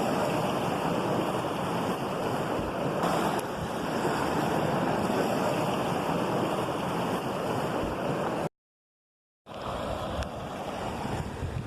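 Steady rushing of falling water from a waterfall. It drops to dead silence for about a second near the end, then returns slightly quieter.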